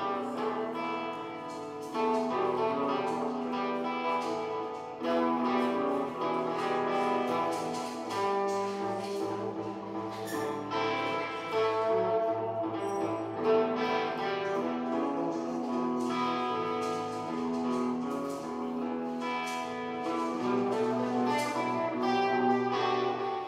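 A guitar playing a blues tune, plucked notes and chords ringing over held lower notes.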